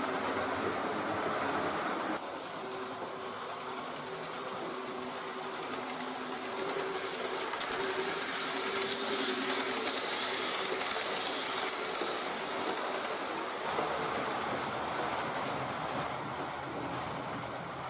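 H0-scale model train running on the layout: a steady motor hum with rolling wheel noise on the track. The sound changes abruptly about two seconds in and again near the end.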